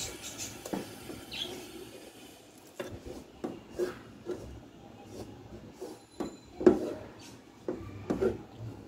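A wooden spatula scraping and knocking against an aluminium pot as it stirs and mashes stiff, crumbly rice-flour dough. The strokes are irregular, with one sharper, louder knock about two-thirds of the way through.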